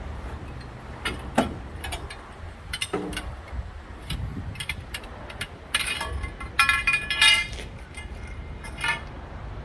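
Metal parts being handled: a series of clinks and knocks, with a ringing metallic clatter about six to seven seconds in, over a steady low outdoor rumble.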